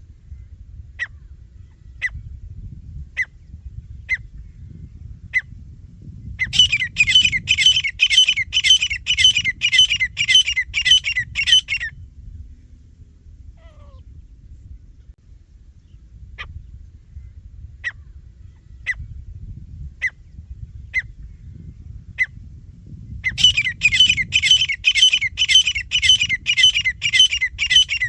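Teetar (francolin) calling: sharp single notes about a second apart, then a loud, fast run of repeated calls about three a second lasting several seconds. The whole sequence happens twice, over a low background rumble.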